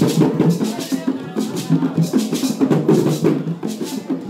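Hand-played wooden box drums and a stick-beaten drum in a fast, steady rhythm, with a rattle pulsing over the beat.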